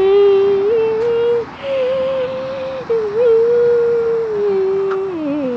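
A voice humming long held notes, each a second or two, that step and slide slowly up and down in pitch with short breaks between them.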